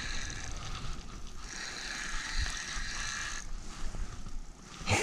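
Fishing reel drag buzzing in two long runs as a hooked pike pulls line off against the light drag, dying down near the end.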